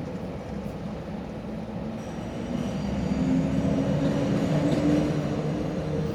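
A passing train's rumble, growing louder about two seconds in, with a steady whine over it.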